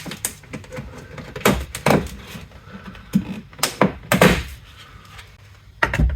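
Plastic interior trim on a car's tailgate being pried and worked loose by hand: a series of sharp clicks and knocks, about six in all, as the panel and its clips come free.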